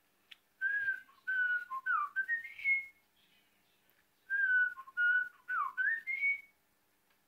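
A budgerigar whistling a short learned tune of clear gliding notes, sung twice with a pause between the two phrases.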